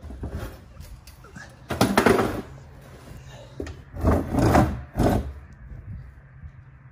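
Rustling, knocking handling noise as the phone camera is moved about: a burst about two seconds in, then two more around four and five seconds in.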